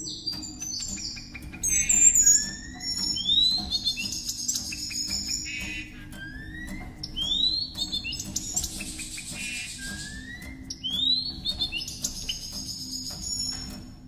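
Blue-capped cordon-bleu singing: a repeated song phrase of high chirpy notes ending in a rising whistle, about every four seconds, over a steady low hum.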